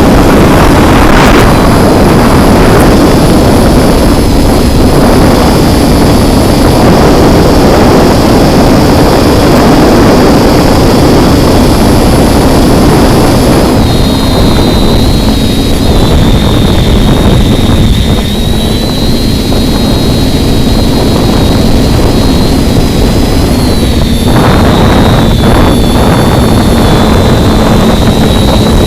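TBS Discovery Lite quadcopter's electric motors and propellers running in flight, a steady hum with a high whine that steps down slightly in pitch about halfway through and again near the end, under heavy wind noise buffeting the microphone.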